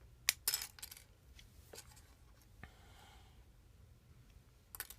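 Sharp clicks and light scraping of small plastic parts as a cheap toy watch is pried apart. There is a cluster of clicks early on, faint ticks and a brief scrape in the middle, and more clicks near the end.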